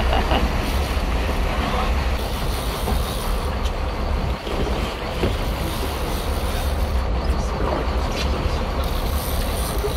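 Wind buffeting the microphone over the steady rush of the sea around the boat: a fluttering low rumble with hiss above it, and a few faint clicks.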